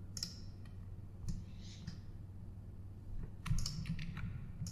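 Computer keyboard keys and mouse buttons clicking a few times at irregular intervals, with a short cluster of clicks about three and a half seconds in.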